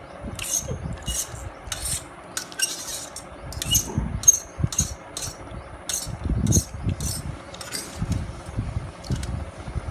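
Glass bangles on a wrist clinking together in short, light, ringing clicks, about one or two a second, thinning out after about eight seconds. Soft low handling bumps sound underneath.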